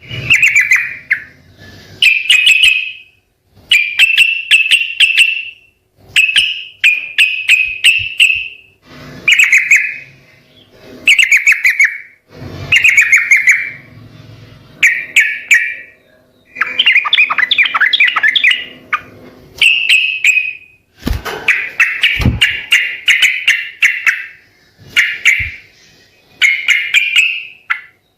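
Yellow-vented bulbul (trucukan) singing in full voice: short bubbly, chattering phrases of quick notes, about one every two seconds, repeated over and over.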